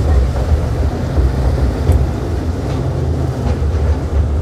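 Miniature toy train running along its track, a steady low rumble heard from aboard its open passenger car.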